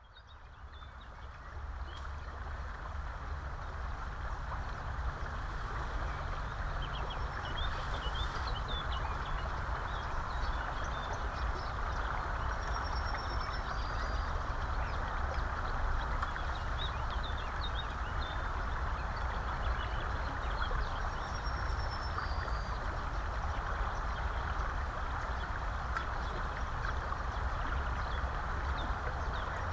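Steady rush of flowing river water with a low rumble of wind on the microphone, fading in over the first couple of seconds; small birds chirp and whistle now and then above it.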